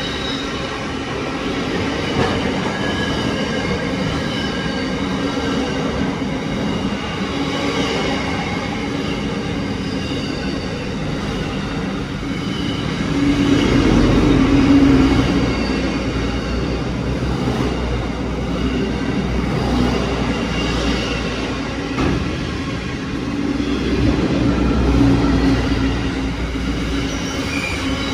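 Container freight train's wagons rolling past close by: a steady rumble of steel wheels on the rails with thin, high wheel-squeal tones over it, growing louder about halfway through and again near the end.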